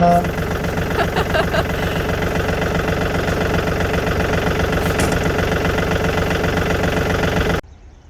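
Large diesel truck engine idling steadily with a knocking clatter, cutting off suddenly near the end.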